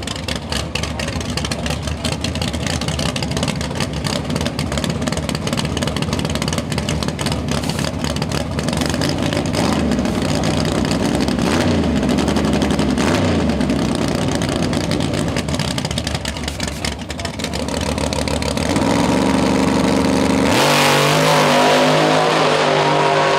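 1988 Ford Mustang drag car's engine running roughly at the starting line with a constant crackle, held at higher revs from about eighteen seconds in, then going to full throttle about twenty seconds in, its pitch climbing as the car launches down the strip.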